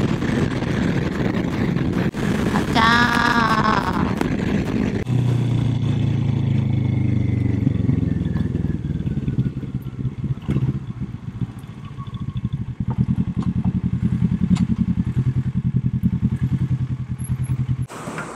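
Motorcycle engine running with wind noise at road speed, then dropping to a steady low-rev note about five seconds in as the bike slows and rolls into a gas station.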